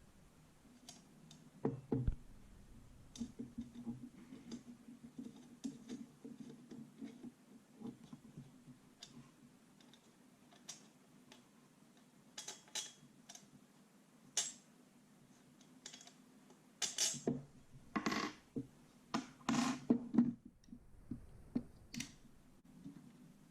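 Scattered small clicks and knocks of metal and plastic gel blaster parts being handled during disassembly, with a cluster of louder knocks near the end.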